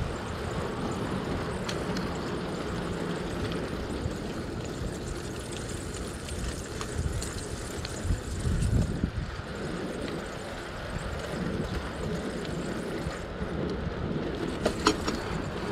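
Wind rumbling on the microphone of a bicycle-mounted camera while riding, over the hiss of tyres rolling on asphalt, with a louder rumble about eight seconds in and a few small clicks near the end.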